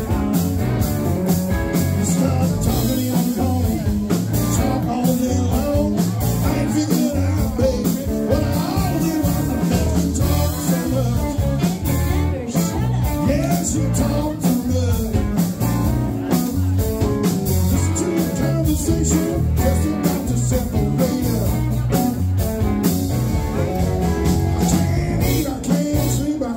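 Live blues-rock band playing: electric guitars, bass and drum kit, with singing over it.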